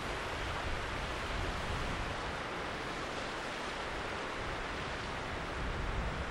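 Steady rushing noise of a fast-flowing river, with wind rumbling unevenly on the microphone.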